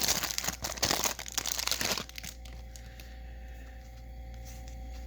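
Plastic wrapping on a baseball-card hanger box crinkling and tearing as it is opened. The crinkling stops about two seconds in, leaving a quiet steady hum.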